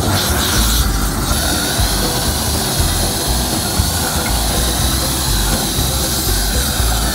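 Propane flame of a Boring Company Not-a-Flamethrower, a steady jet of fire playing over a steak to sear it.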